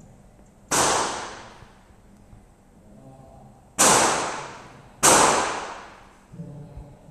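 Three pistol shots from a SIG Sauer P320 SP: one a little under a second in, then two more about a second apart past the middle. Each shot rings on in an echo that dies away over about a second.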